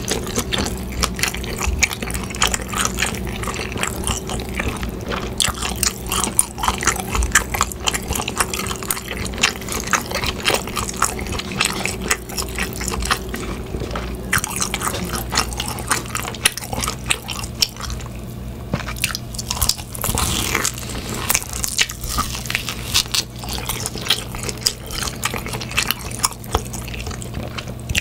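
Close-miked eating sounds of a man biting into an oven-roasted turkey leg, tearing the meat off and chewing it. The sound is a dense, irregular run of wet clicks and smacks.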